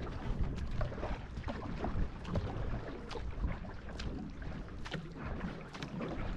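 Paddle strokes of a two-person racing canoe: the blades repeatedly catch and pull through the water with short splashes, about one to two a second, over a low rumble of wind on the microphone.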